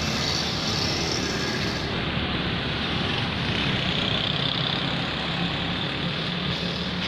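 Steady road-traffic noise from vehicles on a wet street: a continuous hiss with a low rumble underneath.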